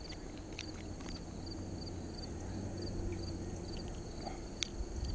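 Insects chirping in a steady, evenly repeating high pattern, with a few sharp clicks and rustles from hands working a hook out of a small pickerel; the loudest click comes near the end.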